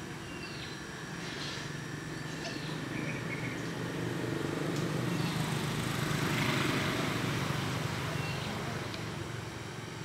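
Outdoor ambience: a steady low background hum that swells a little around the middle, with short, scattered bird chirps.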